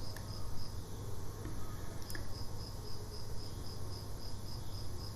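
A cricket chirping in a high, evenly pulsed trill that breaks off shortly after the start and resumes about two seconds in, over a low steady hum.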